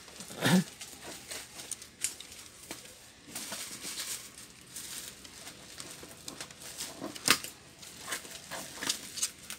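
Hands working inside an open laptop base: light rustling and scattered small plastic clicks and taps from handling cables and connectors, with two sharper clicks about half a second in and about seven seconds in.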